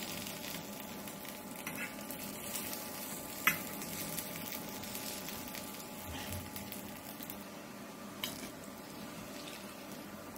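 Oil sizzling steadily in a nonstick frying pan under bread-wrapped potato rolls as they are turned with a fork and a wooden spoon. A few clicks of the utensils against the pan, the sharpest about three and a half seconds in.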